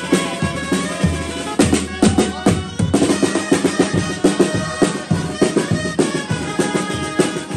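Festive street music: drums keep a steady beat under a melody played on held-note instruments.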